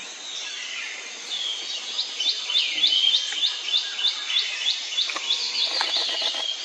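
A bird chirping outdoors: a quick series of short, high chirps, about three or four a second, over steady background noise.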